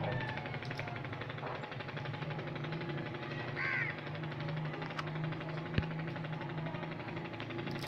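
Low background room noise with a steady low hum, and one short bird call that bends in pitch about three and a half seconds in.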